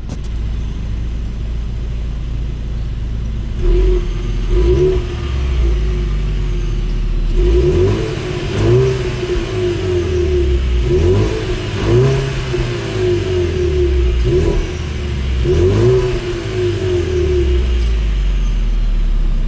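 2021 Ford Mustang EcoBoost's 2.3-litre turbocharged four-cylinder idling through its exhaust, then revved in a series of quick blips, the pitch rising sharply and dropping back each time.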